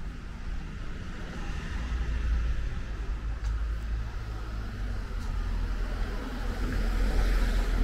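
Road traffic on a residential street: a car going past, its tyre and engine noise swelling about two seconds in and more strongly near the end, over a steady low rumble.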